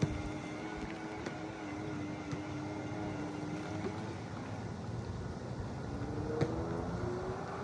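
A distant engine humming steadily, its pitch rising about six seconds in, over a haze of wind noise, with two sharp clicks, one at the start and one about six and a half seconds in.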